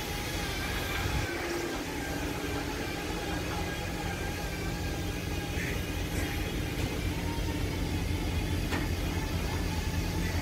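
Engine idling steadily: a low, even hum with no change in speed.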